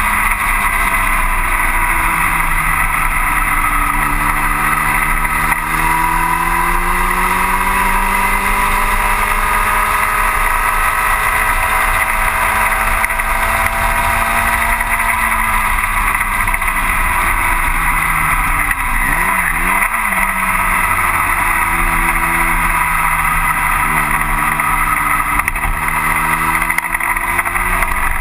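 Racing engine of a 1960 Cooper T-52 Formula Junior, heard from the cockpit under way. Its note climbs under throttle for about half the time, then falls away with a few quick rises and falls in pitch, and climbs again near the end. A steady rushing noise runs over the engine.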